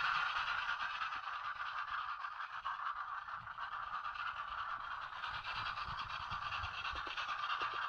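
Model railway trains running on the track: a steady whir of small electric motors and wheels on rails. It fades a little midway and grows louder again toward the end.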